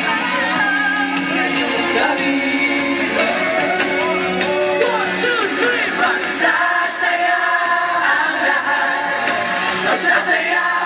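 Live pop song: voices singing into microphones over amplified music.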